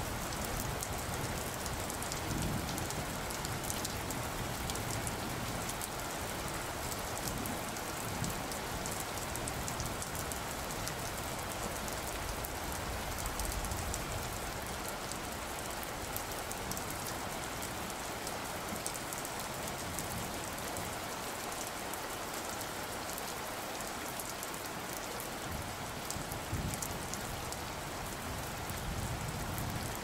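Steady rain falling, an even hiss with a low rumble that fades in the middle and swells again near the end.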